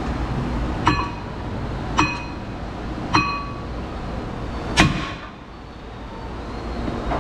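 Four hammer blows on a stuck front brake rotor, about a second apart, each with a short metallic ring. The fourth blow is the loudest. The rotor is seized on the hub and is being knocked loose.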